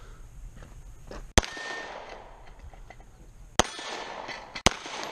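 Three pistol shots, close and loud, each followed by a short echo: the first about a second in, then two more near the end, about a second apart.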